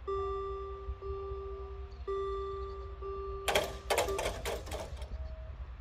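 Electronic gong of a Scheidt & Bachmann BUES2000 half-barrier level crossing ringing about once a second while the barriers lower. After about three and a half seconds the ringing stops and a loud clatter of several knocks follows as the barrier booms come down onto their rests.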